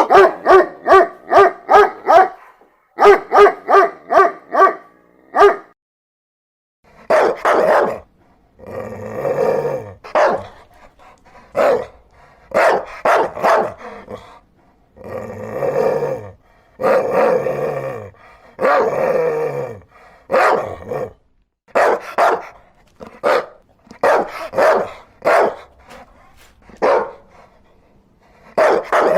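Dogs barking: a quick run of short, sharp barks, about three a second, then after a short pause a series of longer, lower, rougher barks about one a second.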